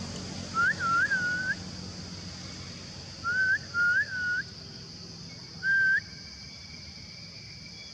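Short whistled notes, each sliding up in pitch, come in a pair, another pair, then a single note. A steady high hiss runs underneath.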